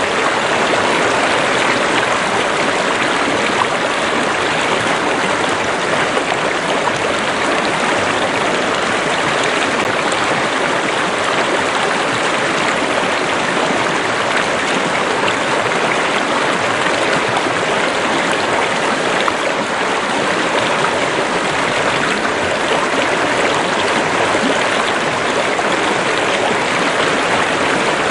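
A river or stream running, a steady, even rush of flowing water.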